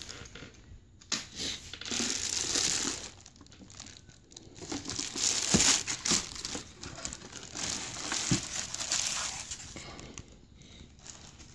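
Clear plastic wrapping crinkling in irregular bursts as a light panel is pulled out of it, with a couple of short knocks.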